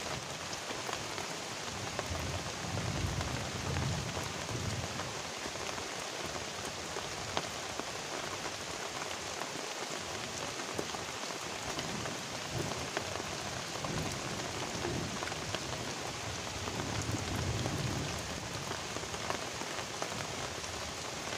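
Heavy rain falling steadily on a river and the leaves around it, a dense even hiss. A soft low rumble swells up twice, a few seconds in and again later on.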